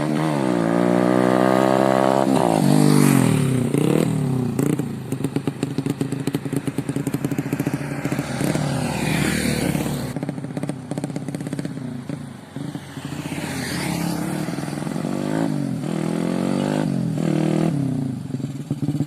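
Yamaha Vega ZR moped's single-cylinder four-stroke engine, built up to 130 cc, revving with a rising pitch that drops back and climbs again several times. It is loudest in the first three seconds.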